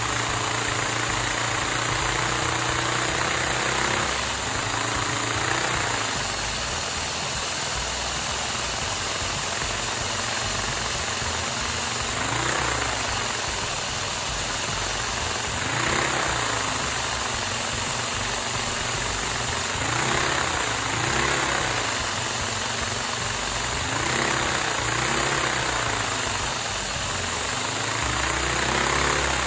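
Inline four-cylinder, cross-plane Lego vacuum engine running on suction. A steady hissing clatter with a hum that briefly rises and falls in pitch several times in the second half.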